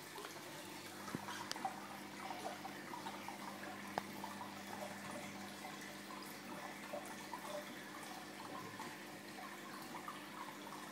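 Aquarium air bubbles streaming and popping in a continuous fine crackle, over the steady low hum of the tank's pump. A single sharp click sounds about four seconds in.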